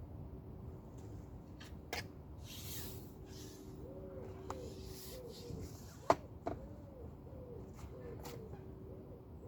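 A run of short, repeated cooing calls from an animal, roughly two a second, starting about halfway through, over a steady low hum, with a few sharp clicks, the loudest about two-thirds of the way in.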